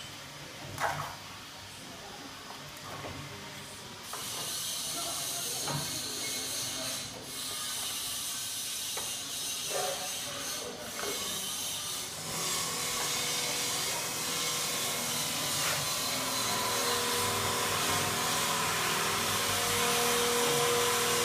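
Heat-sealing machine for food trays running: a steady hiss starts about four seconds in, and a steady machine hum joins later and grows louder. A few short clunks come early on as trays and the handle are worked.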